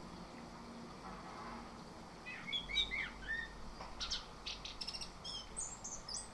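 Orange-headed thrush (anis kembang) singing: after a quiet start, a varied run of short whistled phrases, then quick high chips and trills toward the end.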